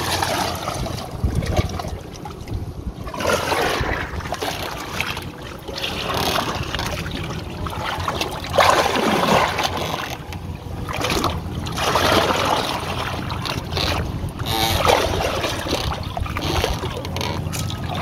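Water splashing and sloshing against the side of a small wooden outrigger boat as a whale shark feeds at the surface beside the hull, in irregular surges a second or so long. A steady low rumble of wind on the microphone runs underneath.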